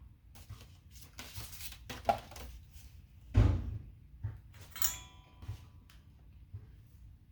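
Handling noises from working wires and tools by hand: rustling, a loud dull thump about three and a half seconds in, then a short ringing clink and a few light knocks.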